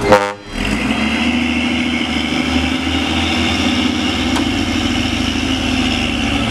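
Mitsubishi Fuso diesel truck engine running steadily. A short sharp knock comes right at the start.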